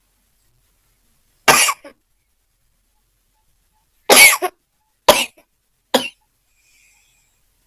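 A woman coughing: one cough about a second and a half in, then three more close together starting about four seconds in. The coughs come while she is trying to force a sneeze that doesn't come.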